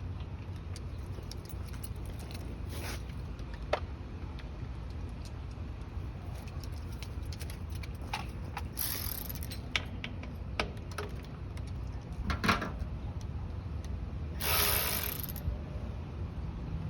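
Light clicks and taps of hand tools working on a generator's carburetor while it is being bled to check fuel flow, over a steady low background hum. Two short rushing, noisy bursts come about nine seconds in and again near the end.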